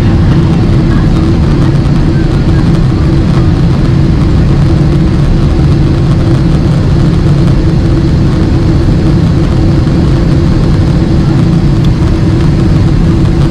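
Steady cabin noise of a Boeing 767-300ER with its General Electric CF6 turbofans at climb power after takeoff. The engines and rushing airflow make an even, unbroken noise with a low hum running through it.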